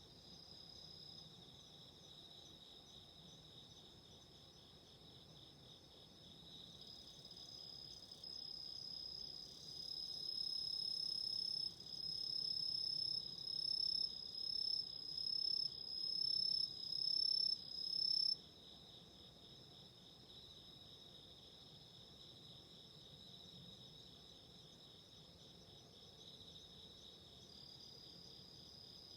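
A chorus of autumn insects trilling steadily at two high pitches. About a third of the way in, one louder insect joins for about ten seconds with a slightly rising song in repeated phrases about once a second, then cuts off suddenly.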